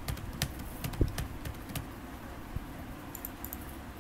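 Typing on a computer keyboard: a quick, irregular run of key clicks over the first two seconds with one louder hit about a second in, then a few light clicks near the end.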